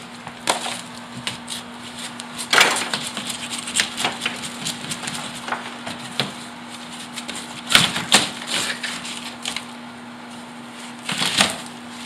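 Crunching and cracking of rotted wall material being broken and pulled away by hand, irregular, with louder bursts of breaking about two and a half seconds in, around eight seconds and near the end. A steady low hum runs underneath.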